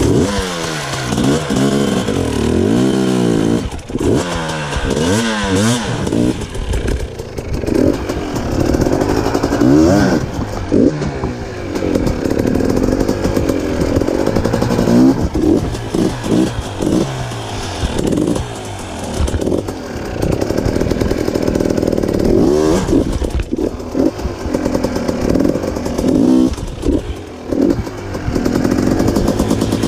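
Off-road vehicle engine revving up and down over and over, throttle opened and closed in quick bursts, while climbing a rocky creek-bed waterfall.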